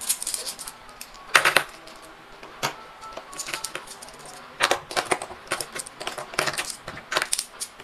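Philippine five-peso coins clinking against one another as they are counted by hand and stacked on a tabletop, in irregular runs of sharp clicks.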